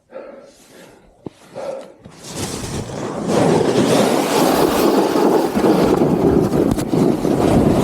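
Skis sliding and scraping on snow with wind rushing over the camera microphone, starting faint and building from about two seconds in to a loud, steady rush as the skier picks up speed.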